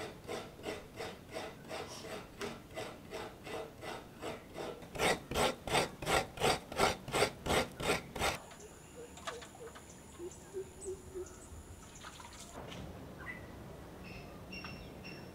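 Coconut being scraped by hand on a seated coconut scraper, a stool with a serrated metal blade. The strokes rasp in an even rhythm of about three a second, grow louder and quicker in the middle, and stop about eight seconds in. A thin high steady tone follows for a few seconds.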